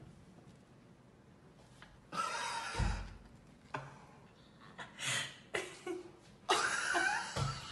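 A person's short breathy laughs in three bursts, about two seconds in, at five seconds and near the end, with a low thump at the end of the first and last.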